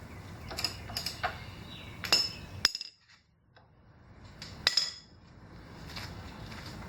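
Scattered metal clinks and taps of hand tools on a scooter's front axle nut as it is snugged down, with a short quiet spell about three seconds in.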